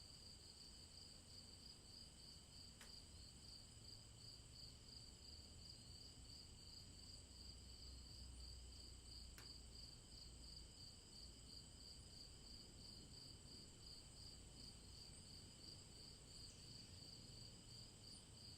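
Faint warm-evening insect chorus: crickets chirping in an even pulse of about three chirps a second, with other insects holding steady high tones above it, over a low, steady rumble. Two faint clicks stand out, a few seconds in and again near the middle.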